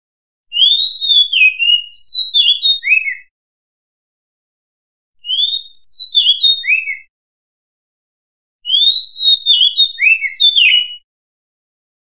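Oriental magpie-robin singing: three phrases of clear whistled notes that swoop up and down, separated by pauses of about two seconds.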